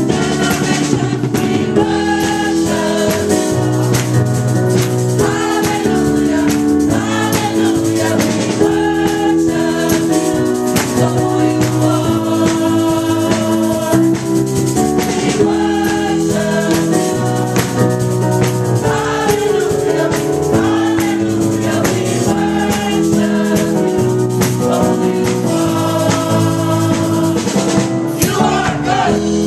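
Gospel choir singing in harmony, with hand clapping on the beat.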